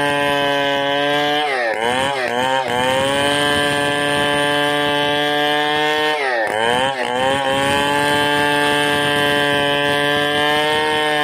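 Chainsaw running at high revs, ripping lengthwise through a squared ironwood beam in a mounted milling frame. The engine speed dips and recovers twice, about two seconds in and again about six and a half seconds in.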